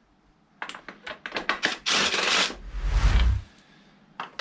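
Tools and parts being handled on a lawnmower engine: a run of light clicks and knocks, then a scraping rustle and a dull thump about three seconds in.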